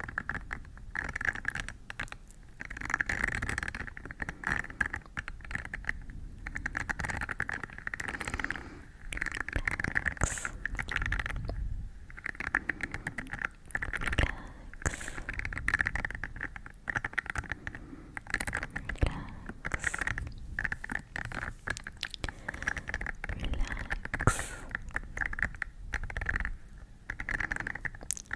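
Close-miked ASMR scratching and crackling, coming in irregular bursts every second or two.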